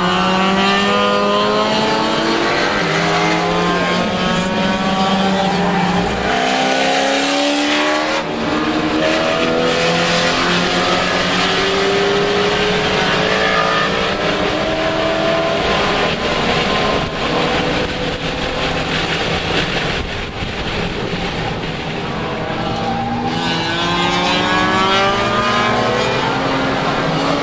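Lexus IS300 race car's 3.0-litre inline-six heard from inside the cabin while it is driven hard, its note climbing through the revs and dropping back repeatedly as it is run through the gears, over road and wind noise.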